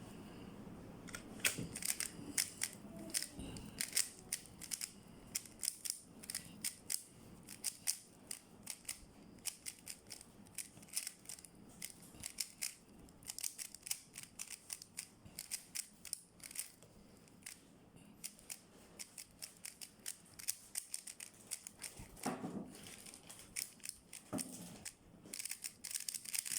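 A QiYi MS magnetic 3x3 speedcube being turned fast during a solve: quick runs of sharp clicks as the layers snap round, with short pauses between runs. There are a couple of duller knocks near the end.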